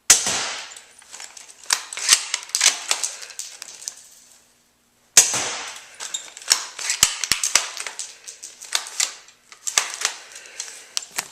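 Two shots from a UHC Tactical 9 spring airsoft sniper rifle, about five seconds apart, each a sharp crack that dies away over about a second. Each shot is followed by a run of clicks and rattles from the bolt action being worked.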